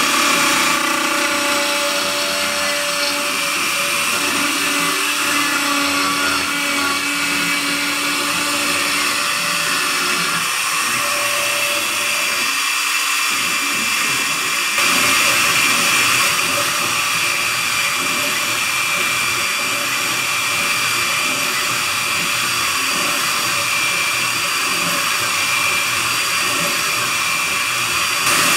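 CNC router spindle whining at high speed while its tapered carving bit mills a relief into a wood board, with a steady cutting hiss. It briefly gets louder about fifteen seconds in.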